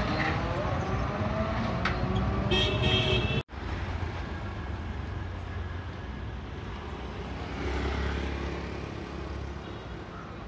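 City street traffic with a car horn tooting briefly about two and a half seconds in. After an abrupt cut, a steady low engine rumble swells for a second or two around the middle as a car pulls out into the road.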